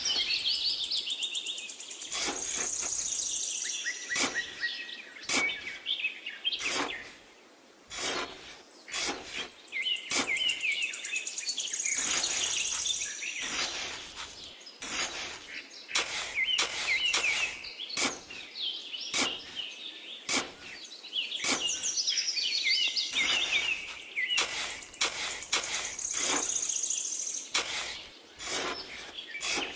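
Small metal trowel scraping and cutting into damp sand, a run of short gritty scrapes and soft knocks, while birds chirp over it in recurring bursts.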